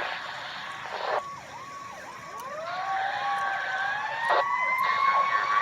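Fire truck sirens: a mechanical siren winds up from low to a high, steady wail, getting louder, while an electronic siren's quick, repeated yelps run over it.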